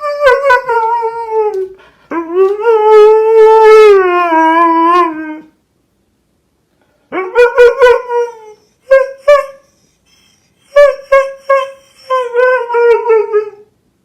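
Husky 'talking': two long wavering howl-like calls that sag in pitch, then after a short pause a string of shorter yowls.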